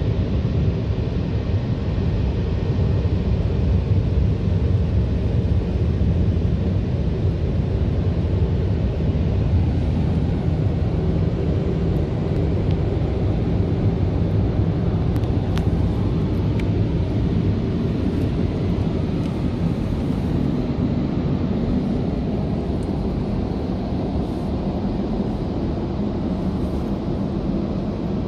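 Automatic car wash heard from inside the car's cabin: rotating strip brushes scrubbing along the body with water spray, a steady low rumble with a few faint ticks about halfway through.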